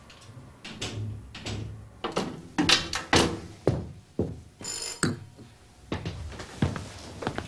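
Repeated knocking and banging on a front door, with an electric doorbell ringing once, briefly, about halfway through.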